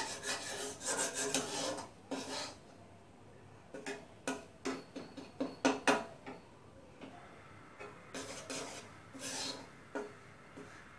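Flat spatula scraping and stirring crumbly wheat flour across the bottom of a wok as it roasts in oil on low heat, in irregular rasping strokes with a few sharp clacks of the spatula on the pan near the middle.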